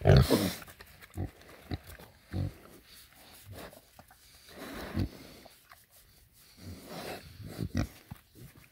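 Domestic pigs grunting at feeding time in short, separate bursts, the loudest right at the start.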